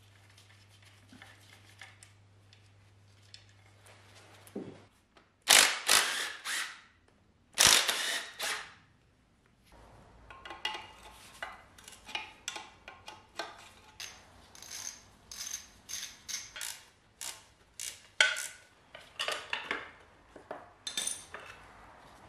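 Hand tools on steel while the power steering pump is unbolted from a Saab 900 engine. Two loud spells of noise come a few seconds in, followed by a long run of short metallic clicks and clinks, two or three a second, with one louder clank near the end.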